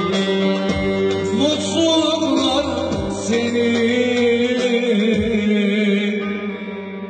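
Live Turkish folk music: an electric bağlama (saz) playing with a keyboard accompaniment and a steady low drone, and a man's voice singing over it.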